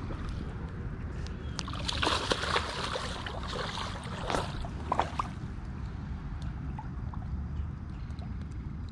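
A hooked channel catfish thrashing and splashing in shallow water, with a burst of splashing about two seconds in and two short splashes a couple of seconds later.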